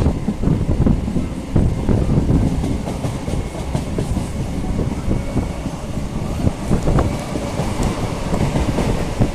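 Electric suburban local train running on the track: a steady rumble with irregular clatter of the wheels over rail joints.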